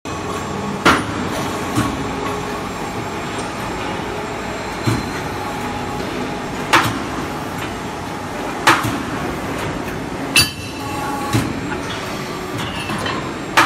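Hydraulic angle flange punching and cutting machine running with a steady hum, its punch striking the angle steel with sharp metallic knocks every couple of seconds, some louder than others and one ringing on like a clang.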